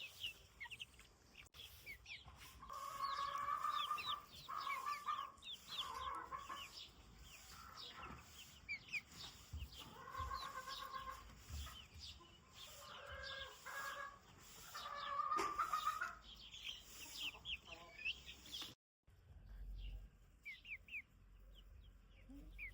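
Free-range hens clucking and giving drawn-out calls, with chicks peeping in quick high chirps throughout. The sound cuts out briefly near the end, and the peeping then comes back more faintly.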